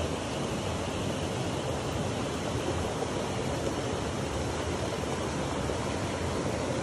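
Shallow rainforest stream running over rocks: a steady, even rush of flowing water.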